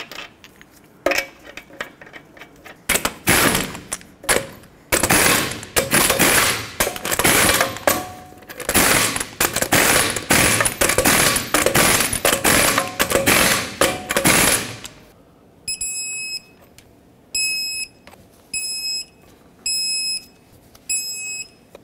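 An impact gun runs the wheel's lug nuts down in a series of rattling bursts, each a second or two long. Then an electronic torque wrench beeps five times, about a second apart, one short beep each time a lug nut reaches 150 foot-pounds in the cross pattern.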